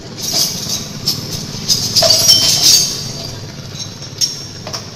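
Honda Vario 125 scooter's single-cylinder engine running steadily, with bursts of metallic clinking and rattling through the first three seconds and two sharp clicks near the end.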